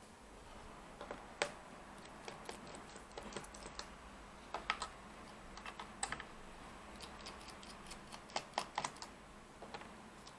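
A small Phillips screwdriver undoing screws on the plastic underside of a laptop: scattered light clicks and ticks of metal on screws and plastic.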